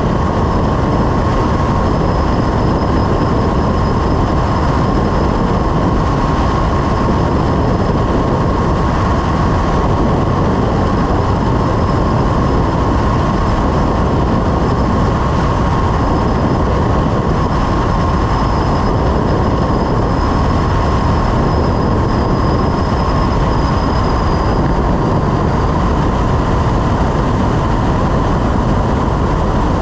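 Light aircraft's engine and propeller running steadily under heavy wind rush, with a steady whine throughout, on final approach to landing.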